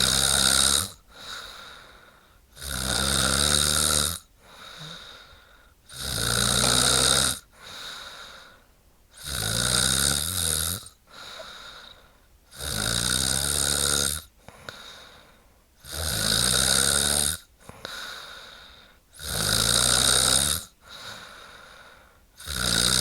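A woman snoring loudly and regularly: a long snore about every three and a half seconds, with a much softer breath between each one.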